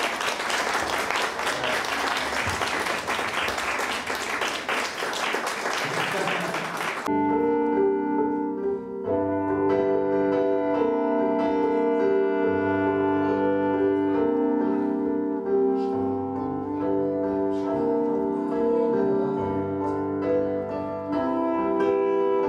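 An audience applauding, cut off abruptly about seven seconds in by slow instrumental music with held notes over a slow-moving bass.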